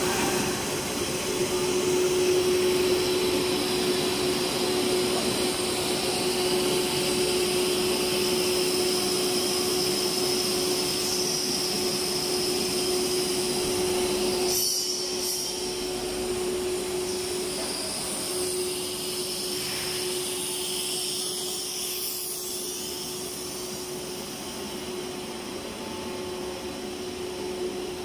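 PVC profile extrusion line running: a steady machine hum and hiss with one constant mid-pitched tone, a little quieter in the second half.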